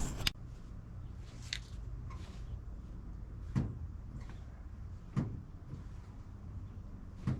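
About five separate short knocks and clicks, one to two seconds apart, over a steady low hum.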